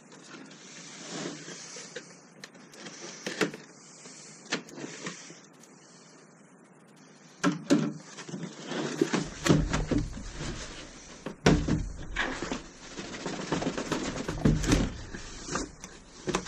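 A knife slicing through packing tape along a cardboard box seam: a series of faint scratchy strokes. From about seven seconds in, louder knocks, dull thumps and cardboard scraping and rustling as the box lid is pulled off and the box handled.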